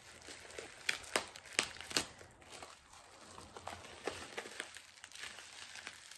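Plastic bubble wrap crinkling and rustling as it is unwrapped by hand, with a few sharper crackles one to two seconds in and softer crinkling after.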